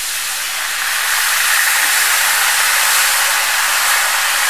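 Milk poured into a hot butter-and-flour roux in a nonstick pan, sizzling with a loud, steady hiss that grows louder over the first second.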